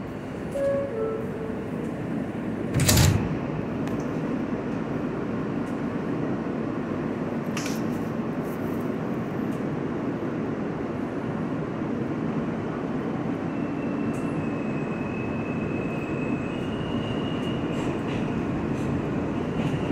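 R160 subway train standing in the station and then pulling out: a steady rumble with one loud thump about three seconds in, and in the last few seconds the traction motors' high whine comes in and steps up in pitch as the train gets moving.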